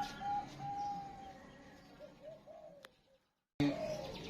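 Zebra dove (perkutut) cooing: a quick run of short, clear notes that slows and fades. It cuts out suddenly about three seconds in, and the cooing starts again loudly half a second later.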